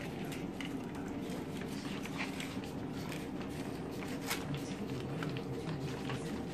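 Small dogs eating rice off disposable plates on a tile floor: scattered light clicks and scrapes of plates and claws on the tiles, with mouthing and licking, over a steady low hum.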